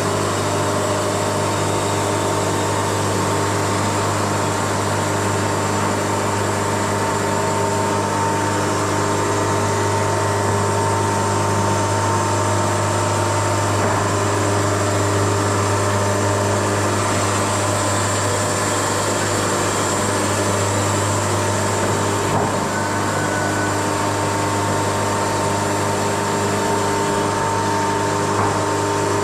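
Wood-Mizer LT70 sawmill running: a steady engine drone with a constant hum and a hiss of machine noise, unchanging throughout.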